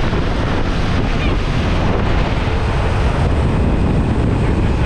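Steady rush of wind and aircraft engine noise through the open door of a skydiving jump plane, with wind buffeting the microphone.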